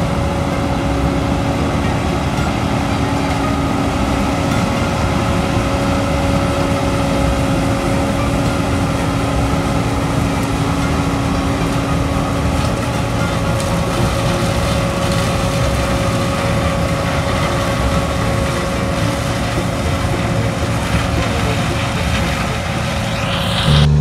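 John Deere 9600 combine running as it harvests corn: a steady diesel and machinery drone with steady whining tones through it.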